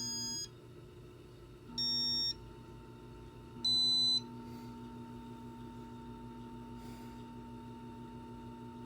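Casablanca Spirit of Saturn ceiling fan on a bench test: its control gives three short electronic beeps about two seconds apart, then the motor runs with a steady electrical hum and tone.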